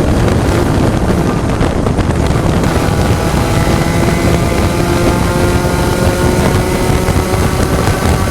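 Spec Racer Ford Gen3 race car's engine running hard at racing speed, with wind noise over the rumble. About three seconds in, a steady engine note stands out more clearly.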